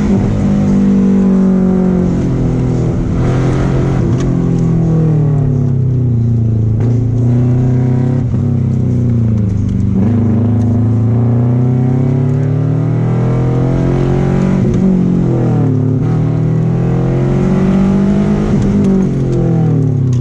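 Subaru Impreza 2.5 RS's flat-four engine, heard from inside the cabin, driven hard through a course. The engine pitch climbs and drops back again and again as the car accelerates and slows for the turns.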